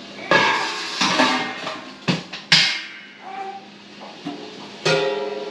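Background music: an acoustic guitar strumming chords, each strum ringing out before the next.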